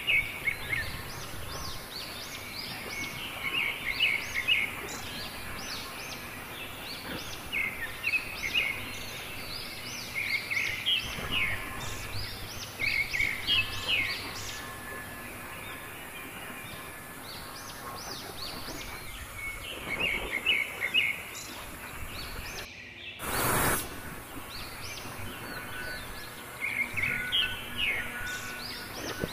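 A songbird singing short bursts of rapid chirps every couple of seconds over a faint steady background hiss, with a brief noise burst about two-thirds of the way through.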